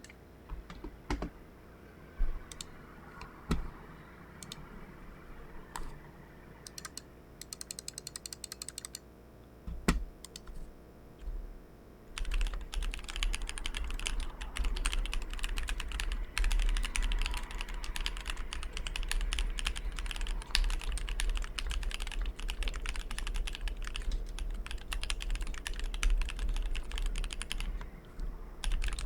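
Mechanical keyboard with SP-Star Polaris White linear switches in a brass plate, under GMK Oblivion keycaps, being typed on. Single scattered keystrokes at first, with a quick run of evenly spaced taps around eight seconds in, then steady fast typing from about twelve seconds on.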